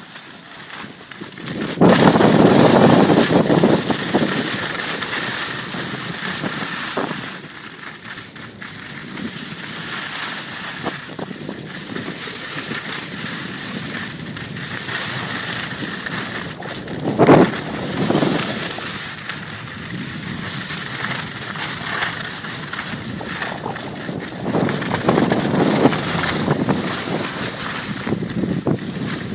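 Wind rushing over the microphone and skis scraping over packed snow while skiing downhill, a steady rushing noise with several louder swells, the strongest a few seconds in and again about two-thirds of the way through.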